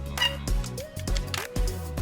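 Background music with a steady beat, about two beats a second, under held and sliding notes.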